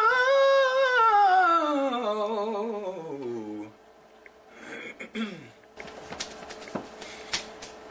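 A man's voice holding one long vocalised tone that rises a little, then slides steadily down in pitch with a slight wobble for about three and a half seconds while his jaw and face are massaged. A shorter falling vocal slide follows about five seconds in, then faint clicks.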